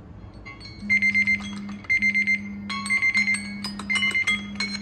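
Timer alarms on three smartphones, an LG Wing and two Samsung Galaxy phones, going off together about a second in. Overlapping ringtones: a quick run of high beeps about once a second over a low steady tone, joined by a second, more melodic tone about two and a half seconds in.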